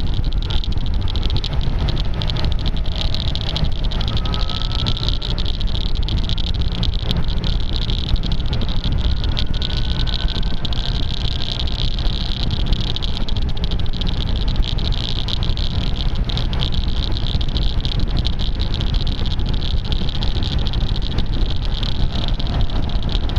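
Steady wind noise and engine running from a maxi-scooter on the move, heard through an action camera's microphone that is covered with tape, which adds a constant crackly clicking. The engine pitch rises faintly a few times.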